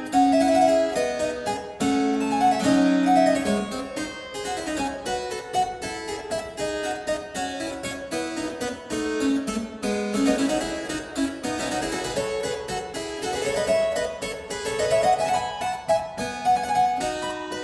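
Harpsichord playing a busy passage of quick plucked notes, with the melody running up and down.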